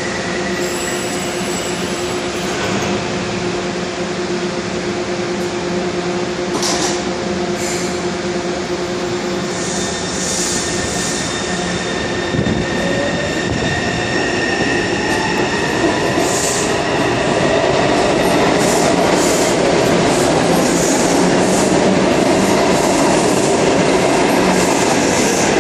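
Taipei Metro C301 electric train departing a platform: a steady hum while it stands, then from about halfway a rising whine from the traction motors as it pulls away, with wheel noise and rumble growing louder as it gathers speed.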